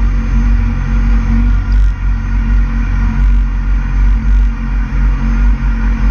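Suzuki GSX-R600's inline-four engine idling steadily at an even pitch.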